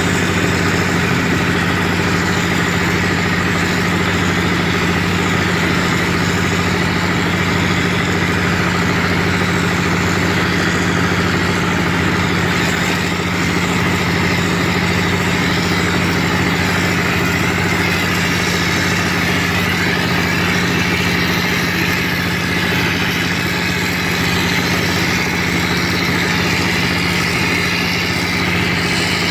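Wall plastering machine running steadily: an even, unchanging machine drone with a low hum.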